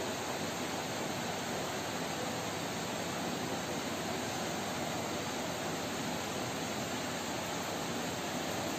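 Steady, even hiss of background room noise, unchanging throughout, with no distinct events.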